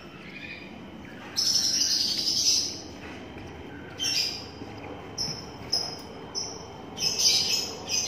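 Twelve-day-old lovebird chick calling in high chirps: one long call about a second and a half in, then a string of short chirps through the second half.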